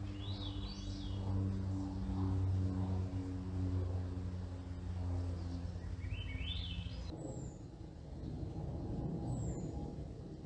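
Birds calling: two quick rising, stepped chirping phrases, then three short, high, downward whistles. Underneath is a steady low drone made of several tones, which stops abruptly about seven seconds in and gives way to a low rumble.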